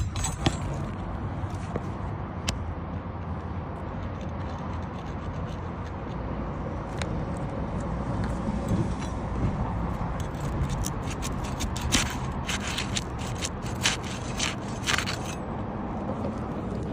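Scraping and scattered sharp clicks and ticks of a metal tool worked under old 3-tab asphalt shingles, prying at a roofing nail to pull it. The clicks come thickest in the second half.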